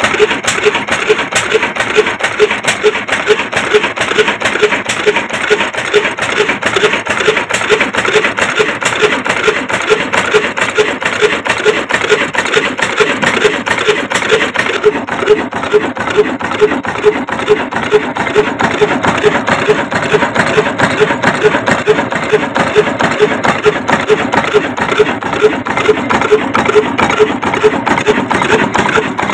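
Slow-running Mughal Sons (Daska) 20 BHP diesel oil engine, rated 275 rpm, belt-driving a flour chakki. Its steady beat of about two firings a second sits under the loud, continuous grinding noise of the stone mill.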